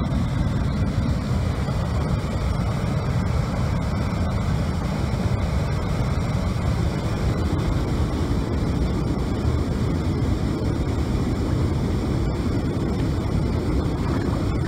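Steady low rushing roar of river water pouring over the inflatable dam, running evenly with no distinct splashes or knocks.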